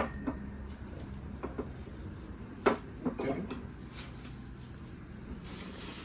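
A few light knocks and clinks as espresso-machine parts (a glass jug with a plastic lid, small metal cups) are set down and handled on a wooden counter, with the sharpest knock a little under three seconds in. Plastic wrapping rustles between them.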